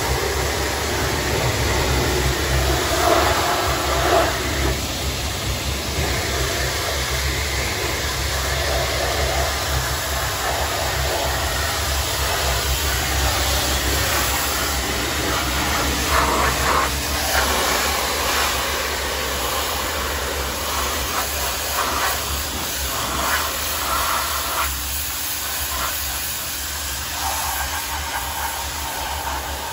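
Hot-water pressure washer jet hissing as it blasts dirt off an old Massey Ferguson 135 tractor, with a steady low hum underneath.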